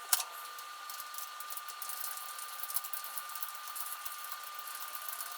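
Small metallic clicks and light tapping from a hand wrench working the seat bolts back in on a motorcycle, over a steady high-pitched whine.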